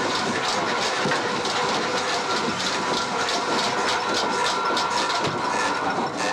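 Watermill machinery, a grinding stand, running at full speed with a steady hiss and a regular clatter. It is loud enough to drown out talk.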